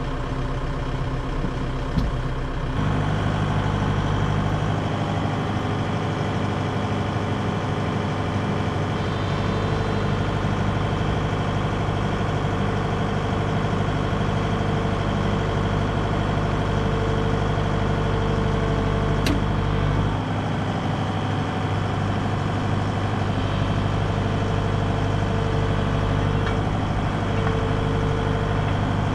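John Deere 2054D excavator's diesel engine running steadily, getting louder and heavier about three seconds in as the machine takes up the load of lifting the swing motor. A higher steady tone comes and goes over it, and there is a single click partway through.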